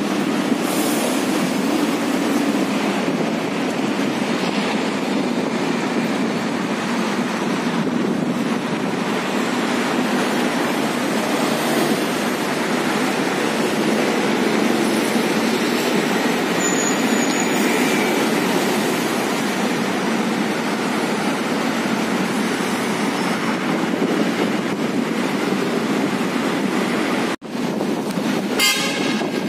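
Steady rushing outdoor noise, cut by a brief dropout near the end.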